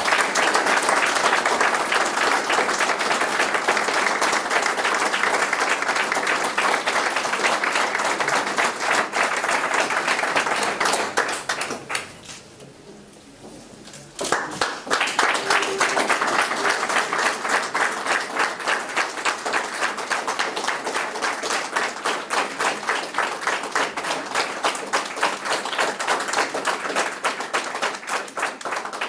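A crowd applauding: dense, sustained clapping that drops away for about two seconds some twelve seconds in, then starts again and carries on.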